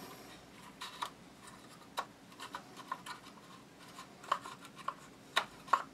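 Scattered light clicks and knocks, with some rubbing, as parts of an IWI X95 rifle are handled during disassembly, about a dozen irregular taps.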